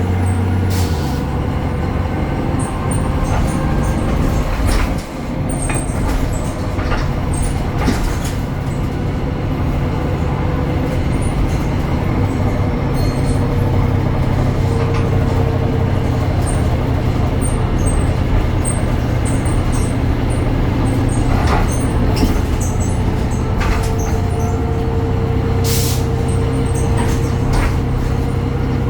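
BredaMenarini Avancity Plus city bus under way: its Deutz engine and ZF gearbox running with a steady low hum and a steady whine above it, while the body gives off scattered clicks and rattles. The engine note dips briefly about five seconds in, then settles.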